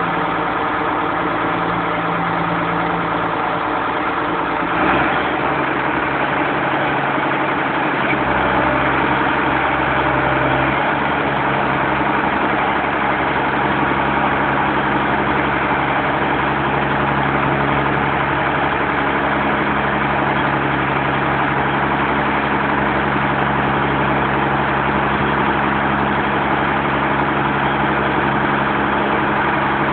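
Chisholm Ryder multi-density bean harvester running. Its steady engine and machinery note changes about five seconds in, and again around eight and eleven seconds, then holds steady.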